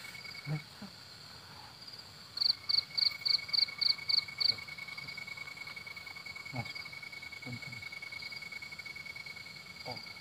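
Night-time crickets: one holds a steady high trill while another chirps in a quick run of about eight loud chirps a couple of seconds in, about four a second.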